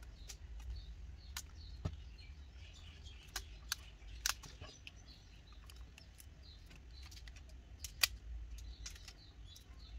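Rubber bands being stretched and wrapped around a smartphone, giving faint squeaky chirps and scattered light clicks and snaps. The loudest click comes about eight seconds in.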